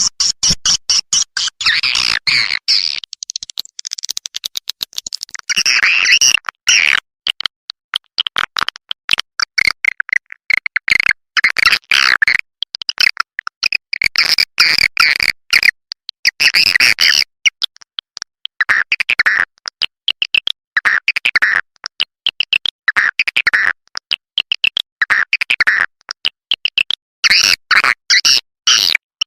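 Swiftlet lure call for bird-nest houses: rapid trains of dry clicks and chirps, swelling into louder chattering bursts of about a second every few seconds.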